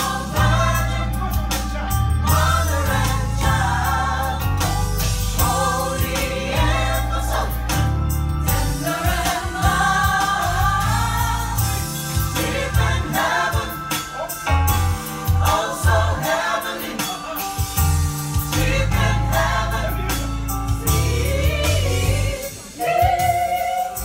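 Live gospel choir singing in harmony, with a strong bass line under the voices.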